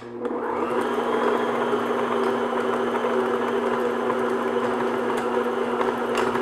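Electric stand mixer switched on and running steadily, its beater mixing a stiff butter-cookie dough in a glass bowl to bring it together after a splash of milk.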